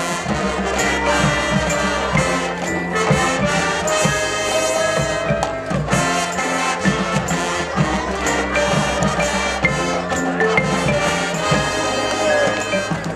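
High school marching band playing, brass over a steady drum beat.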